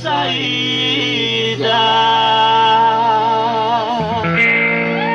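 A live band plays a romantic Brazilian song over guitar accompaniment. The singer holds the last word of a line ("saída") with vibrato, and the instruments carry on alone for the last second or so.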